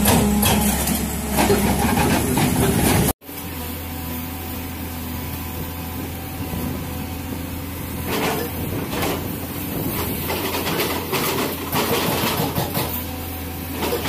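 JCB JS215 tracked excavator working: its diesel engine runs with a steady low hum while the bucket clatters and scrapes in rocky soil now and then. The sound is loud and busy at first, cuts off abruptly about three seconds in, then resumes quieter.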